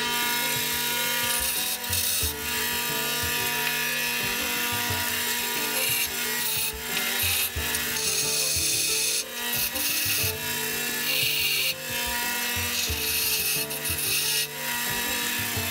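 Bench grinder grinding the head of a steel bolt held in a hand vise: a rough, rasping hiss over the motor's steady hum. It breaks off briefly several times as the bolt comes away from the wheel.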